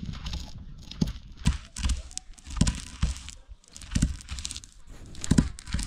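A heavy stone rocked and rolled over a flat stone slab, crushing wild pistachios: a rough grinding scrape with sharp cracks every second or so.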